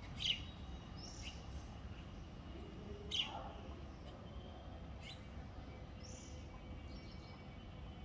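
House sparrows chirping: about six short, separate chirps, the loudest near the start and about three seconds in, over a steady low background rumble.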